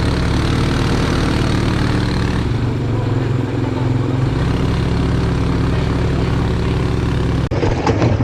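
ATV engine running steadily at low revs, with an abrupt break near the end as the sound switches to another stretch of engine noise.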